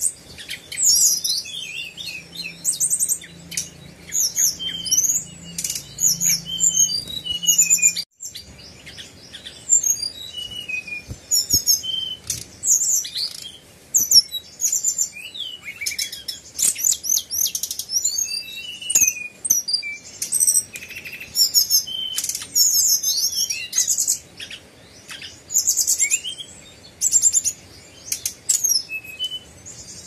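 Caged brown-chested jungle flycatcher (SRDC) singing non-stop: a fast, varied run of high whistled notes and trills, with a very brief break about eight seconds in.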